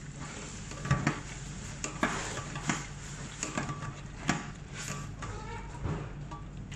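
Sliced onions squeezed by hand in a metal mesh strainer over a stainless-steel sink to press out their liquid: irregular clinks and knocks of the strainer, roughly one a second, over a steady low hum.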